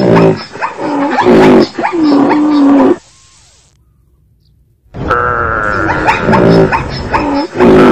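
Recorded animal calls, pitched cries mixed with sharp clicks, that stop about three seconds in and start again about two seconds later.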